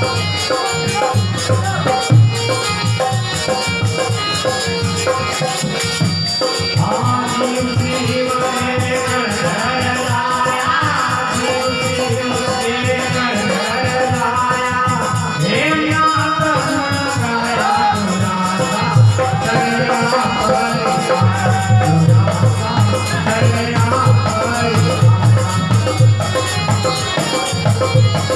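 Live Indian folk music from a small ensemble of harmonium, hand drums and a long-necked lute, with a fast, steady drum rhythm. A man sings over it from about a quarter of the way in to about two-thirds through, while the drums briefly drop out at either end of the singing.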